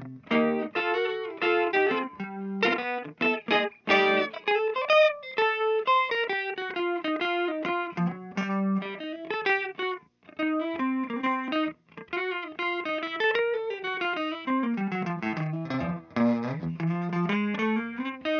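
Background music: a guitar playing a melody with gliding notes.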